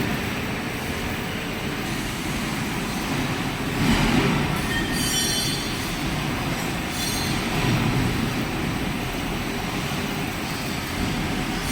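Metal lathe running under manual cutting, with a steady mechanical rumble that swells about every three to four seconds, bringing brief high metallic squeals.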